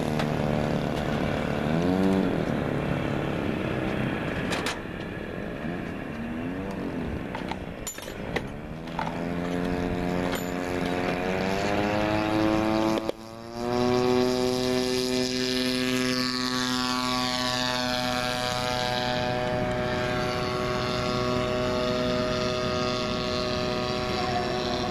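Small model-airplane engine on a Lazy Ace RC biplane, idling with short throttle blips while taxiing, then opened up about eight seconds in for the takeoff run. It then runs steadily at full power as the plane climbs away, its pitch sinking slowly for several seconds.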